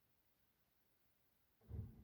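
Near silence, then about one and a half seconds in a low rumble starts abruptly and keeps going.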